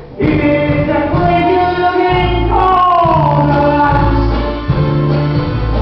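Singing of a musical-theatre song over instrumental accompaniment with held bass notes. A long sung note slides downward about halfway through.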